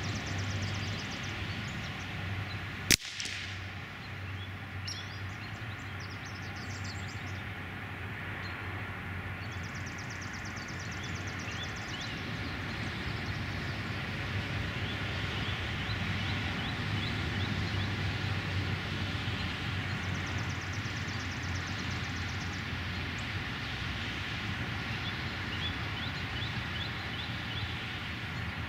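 A single shot from a Beretta ARX 160 .22 LR rifle about three seconds in, followed by steady wind noise on the microphone.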